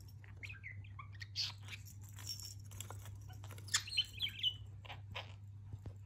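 Budgerigar chirping and chattering in short warbling calls, mixed with several sharp clicks, the loudest about four seconds in.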